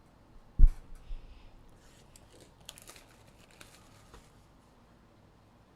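A single heavy thump about half a second in, then crinkling, tearing and light clicks of card-box packaging being opened by hand.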